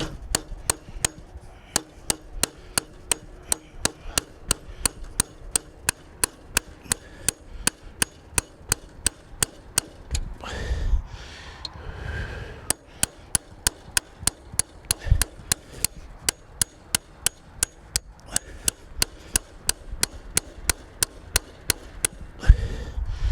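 Hammer striking a metal punch in steady sharp taps, about three a second, with a short break about halfway through and again later.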